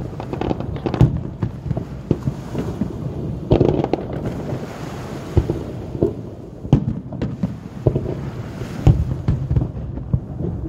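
Aerial fireworks bursting over and over: irregular sharp booms, roughly one or two a second, with a continuous low rumble of echoes between them.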